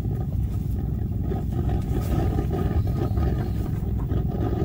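Wind buffeting the ice fishing shelter and the microphone: a steady, low, fluttering rumble.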